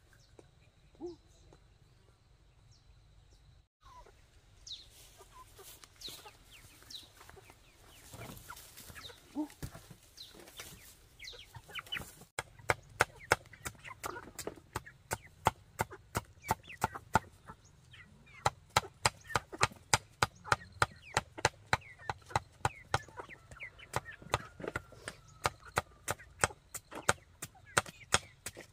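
Hens clucking around a coop, then from about twelve seconds in a knife chopping eggshells on a wooden stump block in rapid, even strokes, two to three a second, with the clucking going on underneath.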